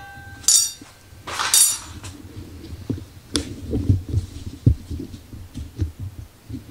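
Metal parts and tools being handled: two short metallic scrapes or clinks about half a second and a second and a half in, then a run of dull low knocks and thumps with one sharp click.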